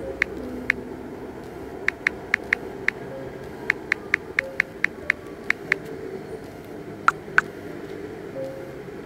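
Smartphone keyboard key-press clicks as a text message is typed, in quick runs of short, sharp ticks, then two sharper clicks near the end as the message is sent.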